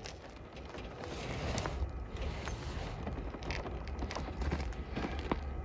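Heavy roll of power cable scraping slowly down old wooden 2x6 planks from a truck bed, the boards creaking under the load, with a few small knocks and a low rumble.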